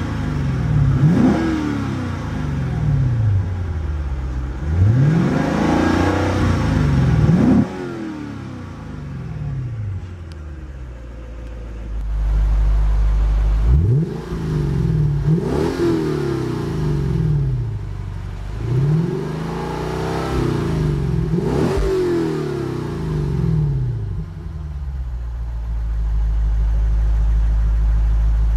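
2008 Lexus IS-F's 5.0-litre V8 revved in park with a series of quick blips that rise and fall, about three heard from inside the cabin and then about six from behind the quad exhaust tips. It settles to a steady idle near the end.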